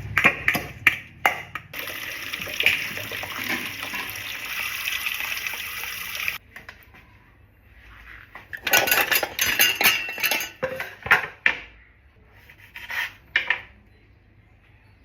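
Dishes and cutlery clinking and clattering, with a few seconds of steady rushing noise, like running water, that cuts off suddenly partway through.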